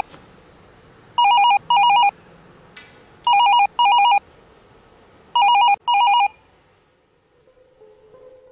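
Mobile phone ringing with a classic double-ring telephone ringtone. Three pairs of short warbling rings come about two seconds apart, then the ringing stops a little after six seconds in.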